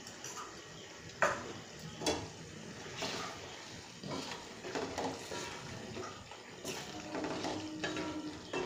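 A spatula stirring thick poppy-seed curry in a steel kadai, knocking and scraping against the pan over a steady hiss. There are two sharp knocks about one and two seconds in, then a run of scrapes and clinks.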